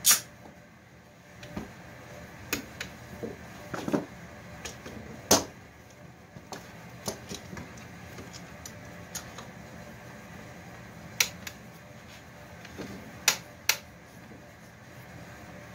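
Sharp, scattered clicks and knocks from bar clamps being slid onto and tightened across a wooden bench frame during a dry fit, about half a dozen in all, over a steady low hum.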